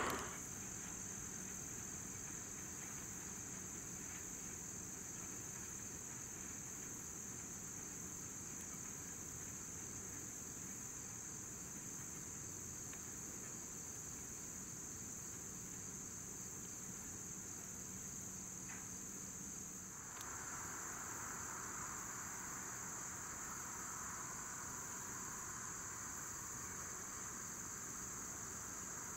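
Insect chorus, a steady high-pitched trill. About two-thirds of the way through, a softer, lower hiss joins it.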